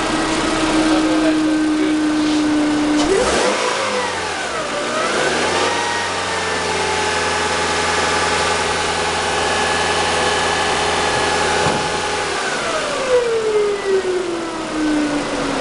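Toyota RAV4 engine running steadily, then revved up about three seconds in and held at raised rpm for the alternator's no-load output test, before falling back toward idle near the end.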